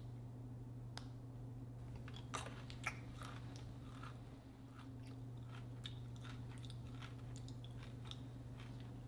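Faint, irregular small clicks and crackles over a steady low electrical hum.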